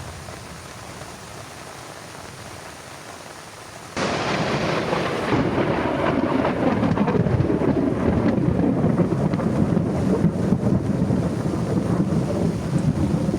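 Steady rain, then about four seconds in a sudden loud thunderclap that runs on into a long rolling rumble of thunder over heavy rain.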